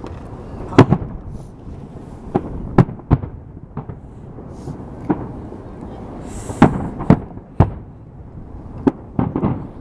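Fireworks going off: about a dozen sharp bangs at irregular intervals, some in quick succession, over a continuous background of more distant crackling and pops.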